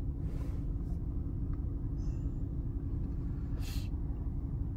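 Steady low hum of a vehicle cab with the engine running, with two short rustling hisses and a brief high beep about two seconds in.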